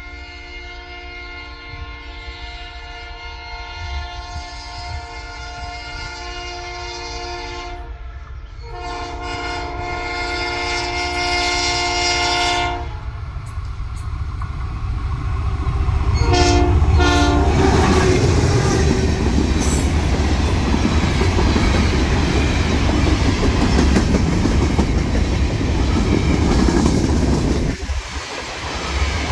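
Diesel freight locomotive's horn sounding two long blasts and then two short ones as it approaches, followed by the train passing close by: a loud rumble, then the hopper cars' wheels clattering over the rails.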